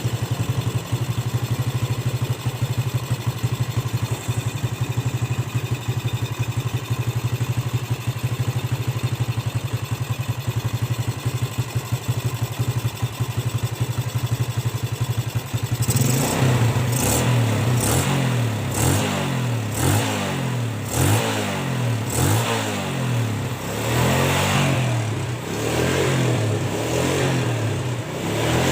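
Rebuilt Yamaha Jupiter Z single-cylinder four-stroke motorcycle engine idling steadily, then, a little past halfway, revved in a series of short throttle blips. It runs smoothly with no knocking, after a new oversize piston was fitted to cure a rough, knocking engine.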